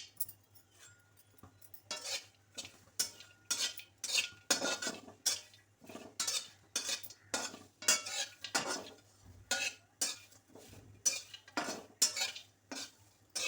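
A metal spoon scraping and clinking against metal cookware in repeated short strokes, about two a second, as roasted spices are scooped and transferred.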